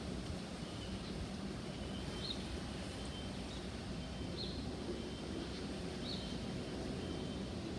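A bird giving short, high chirps every second or so, over a steady low background rumble.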